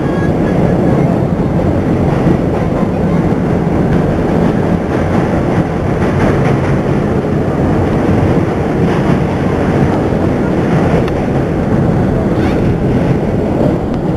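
New York City Subway N train running, a loud steady rumble of wheels on rails heard from inside the car.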